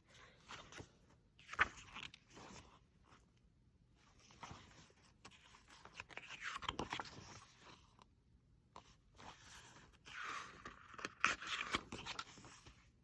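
Paper pages of a notepad-style album photobook being turned and handled: soft rustling and scraping in several bouts, with a sharp click about one and a half seconds in.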